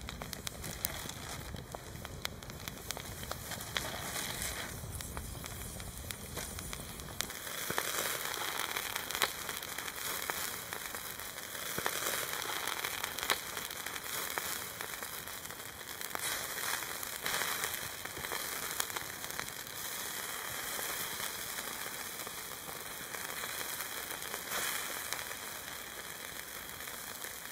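Wood campfire crackling, with many small sharp pops. A low rumble underneath stops abruptly about seven seconds in.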